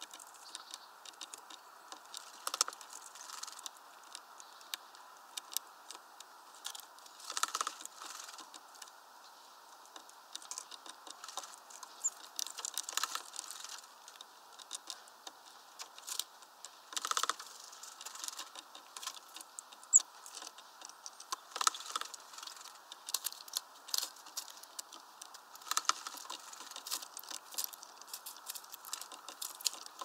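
A small tit bathing in a shallow plastic dish of water: repeated splashing and fluttering, with about five louder flurries, over a steady patter of small ticks and drips.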